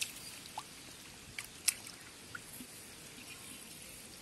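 Hands moving in shallow muddy water: faint drips and small splashes, with a few light clicks.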